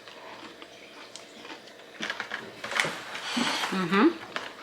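Mouth noises of someone eating an ice cream cone, with short crunching and chewing sounds from about two seconds in. A pleased hummed "mmm" that wavers in pitch comes near the end.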